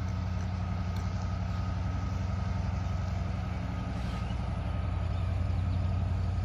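Diesel locomotive engine idling steadily at a stop, a low even rumble with a faint steady whine above it.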